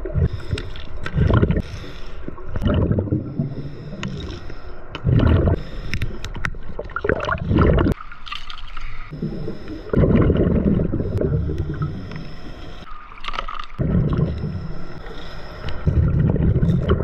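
Scuba diver breathing through a regulator underwater: a hissing inhale, then a gush of exhaled bubbles gurgling past the mask, repeating every few seconds.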